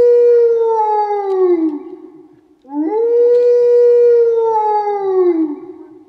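A dog howling twice close by: two long howls, each rising quickly, holding a steady pitch and sliding down at the end.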